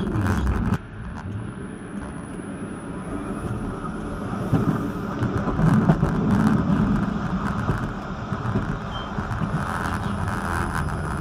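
Vityaz-M low-floor tram running along its track: steady rumble of wheels on rails and the traction drive. It drops away suddenly just under a second in, then builds again and is loudest around the middle as the tram gathers speed.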